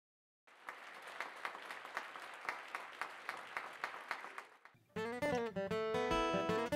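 Faint audience applause, then about five seconds in an acoustic string band starts playing: strummed acoustic guitars and mandolin over upright bass.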